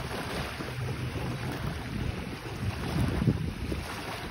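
Wind buffeting the microphone, with gusts swelling about three seconds in, over small waves lapping at the shoreline.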